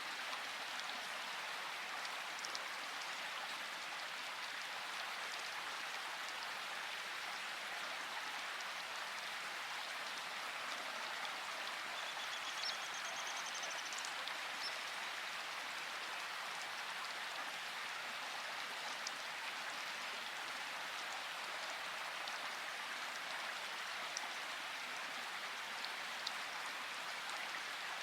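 Steady rain falling in a forest, an even hiss of drops on leaves with a few separate drips ticking. A faint short bird call sounds about halfway through.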